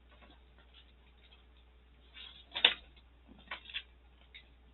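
A few light taps and clicks of planner covers and notebooks being handled on a table. The sharpest tap comes about two and a half seconds in, with two softer ones about a second later.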